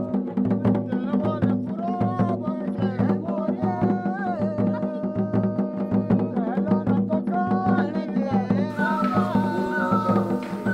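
Background instrumental music in an Indian style: a steady drone, an even hand-drum beat about twice a second and a melody that slides in pitch. A hiss rises over the music about nine seconds in.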